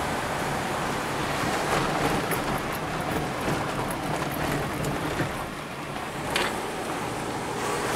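A car's engine and tyre noise heard from inside the cabin as it drives slowly and turns a corner, a steady rumble with a few light clicks and one sharper click about six seconds in.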